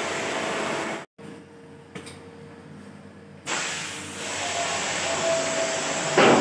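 High-pressure water spray from an AC-cleaning sprayer: a steady rush of spray noise that cuts off about a second in, leaving a much quieter stretch. The spray noise starts again about halfway through, with a short louder burst near the end.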